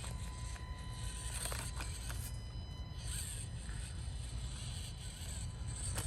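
Axial SCX24 Deadbolt mini RC crawler running, its small electric drivetrain giving a faint steady whine. A few light clicks and scrapes about one and a half to two seconds in as it crawls over the course.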